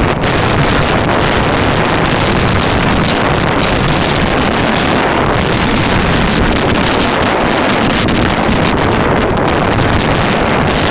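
Loud, steady wind rushing over a helmet camera's microphone on a mountain bike descending a dirt singletrack at speed, mixed with the low rumble of the ride.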